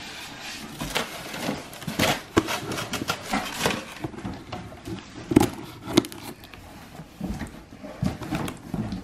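Packaging being handled: plastic wrap crinkling and styrofoam packing inserts rubbed, scraped and knocked, in irregular rustles and clicks, with two sharper knocks about five and six seconds in.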